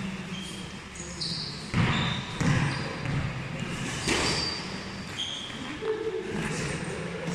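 Boxing gloves landing punches during sparring: a few sharp thuds, the loudest about two seconds in, again half a second later and about four seconds in.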